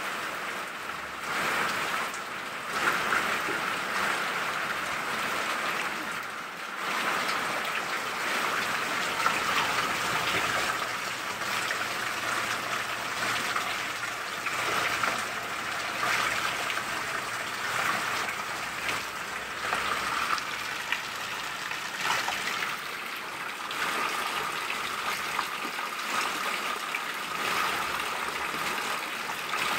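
Heavy rain falling steadily on a concrete yard and potted plants, with roof runoff pouring down and splashing into plastic buckets.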